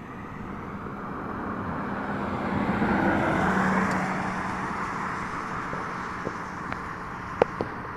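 A vehicle driving past on a road: tyre and engine noise swelling to a peak about three to four seconds in, then fading away. A few faint clicks near the end.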